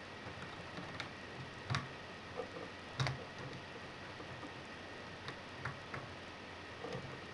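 Metal lock pick working the pins inside a MILA Evolution euro profile cylinder during single-pin picking: a few sharp, irregular clicks, the loudest near two seconds and three seconds in, over a faint steady hiss.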